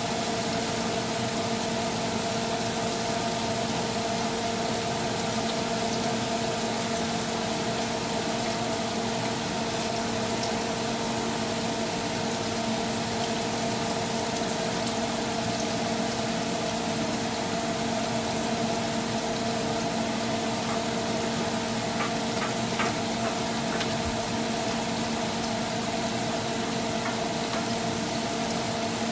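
Shrimp sizzling in garlic butter in a grill pan on an electric stove, a steady hiss over a steady low hum, with a few light clicks about 22 seconds in.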